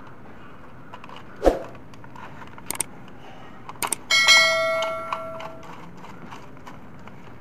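A bell-like notification chime from a subscribe-button animation rings out about four seconds in and fades over about a second and a half. Before it come a knock and a few light clicks from handling the plastic switch board and screwdriver.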